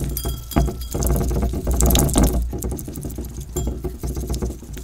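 Wet, sticky slime mixture being stirred and smeared against the inside of a glass bowl, with a stream of small squelching clicks that thicken into a dense stretch about a second in.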